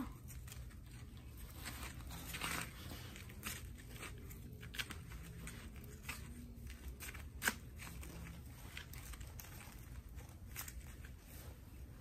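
Gloved hands packing and scraping snow into a small plastic cup: scattered soft crunches and scrapes, with a sharper click about seven and a half seconds in.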